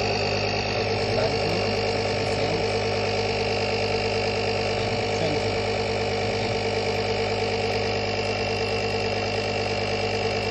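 Small piston air compressor built into a portable jump starter, running steadily as it inflates a tire, set to stop at 36 PSI.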